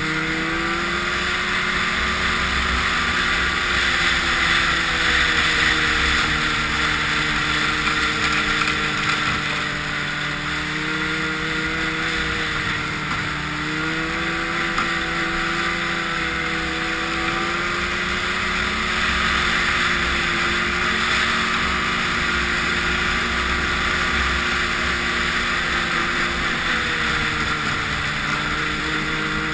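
Snowmobile engine running under way, its pitch drifting gently up and down with the throttle, over a steady hiss.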